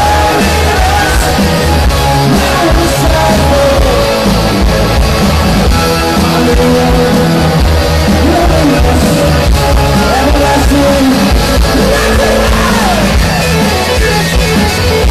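Rock band playing live and loud through a concert PA: electric guitar over bass and drums, with some singing.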